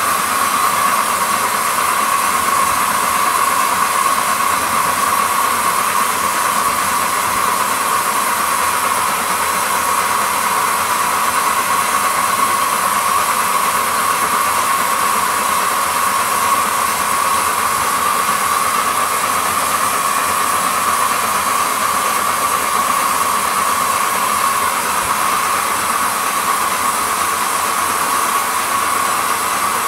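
7¼-inch gauge live steam New York Central Dreyfuss Hudson locomotive running on a test bench with its wheels spinning free, giving a loud, steady hiss of steam.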